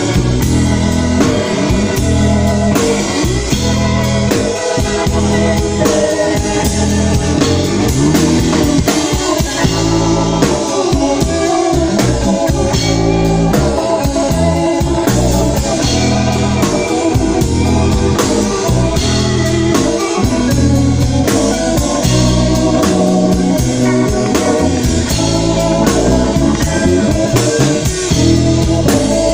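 Instrumental passage of a pop song played live: a steady drum beat under keyboard and guitar.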